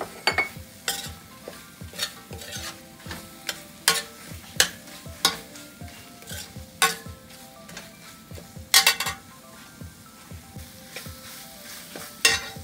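Metal spoon scraping and clinking against a stainless steel frying pan as spice paste, lemongrass and dried shrimp are stir-fried, over a steady sizzle. The strokes come irregularly, with a louder flurry about nine seconds in and another near the end.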